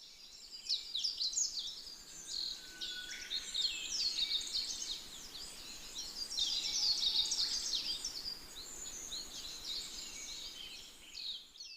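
Several small songbirds chirping and trilling in a dense, overlapping chorus of quick high notes over a faint hiss. The chorus cuts off suddenly just before the end.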